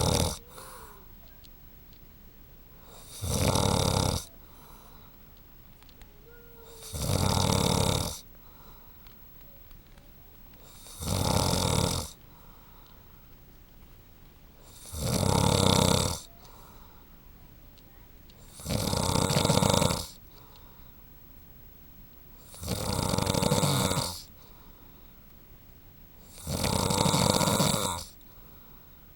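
A sleeping man snoring: seven long, loud snores, each about a second, coming regularly about every four seconds.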